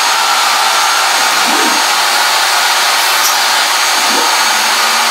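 Shapeoko CNC router running a dry-run toolpath at high feed rate: a loud, steady motor whir, with the stepper motors whining up and back down twice as the gantry speeds up and slows for a change of direction.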